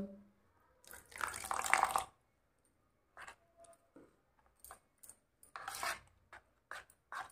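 Metal spoon stirring thick gram-flour batter in a bowl: a longer stretch of wet stirring about a second in, then scattered short scrapes and clicks of the spoon against the bowl.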